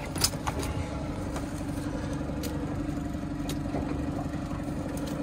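Boat motor running steadily at trolling speed, a low hum with a held tone. A sharp click about a quarter second in and a few lighter clicks come from tackle being handled.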